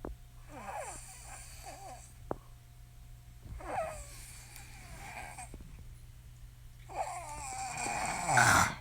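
A woman snoring: irregular snoring breaths every few seconds, the loudest and longest near the end.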